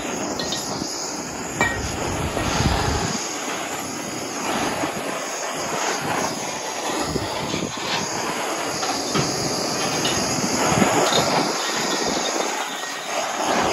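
Hand-held gas torch burning with a steady rushing hiss that swells and eases at times.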